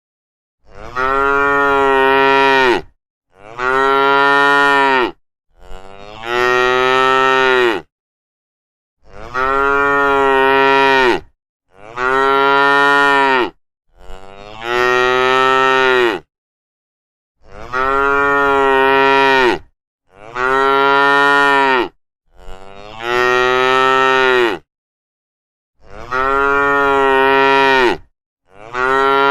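Cow mooing: a long series of drawn-out moos, about two seconds each and about eleven in all, each dropping in pitch at its end, with dead silence between them.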